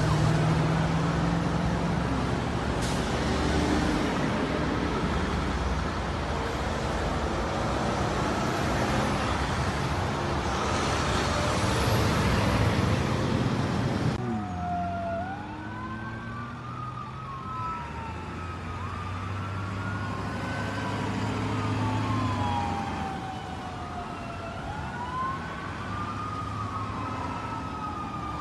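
Heavy road traffic, trucks and cars passing, for the first half. Then emergency vehicle sirens wail over the quieter traffic, their pitch sweeping up and down, two overlapping sweeps at times, as a police vehicle approaches.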